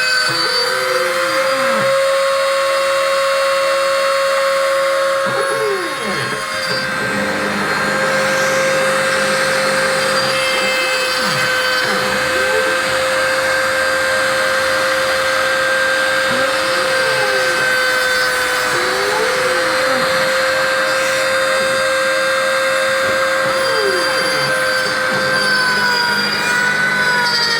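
CNC milling machine cutting: the spindle whines at a steady pitch over the hiss of the cut, while the axis motors sweep up and down in pitch every few seconds as the tool changes direction.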